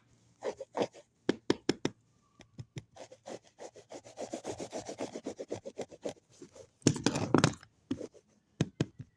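Hands handling a small handbag, with scattered taps, then a fast run of rubbing and scratching strokes on its surface, and a louder burst of rubbing about seven seconds in.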